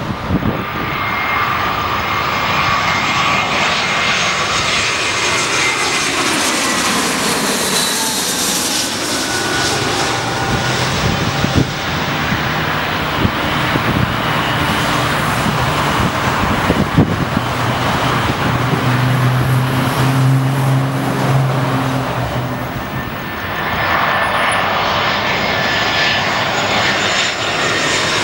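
Airbus A320 jet airliners on landing approach: the engines make a steady roar with a high whine in it. The roar swells and sweeps as a jet passes close by, and dips briefly about 23 seconds in before rising again.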